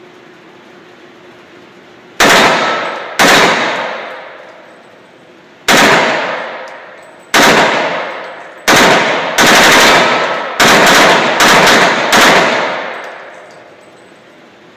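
About nine handgun shots fired one at a time, the later ones coming faster, each followed by a long echoing decay in an indoor shooting range.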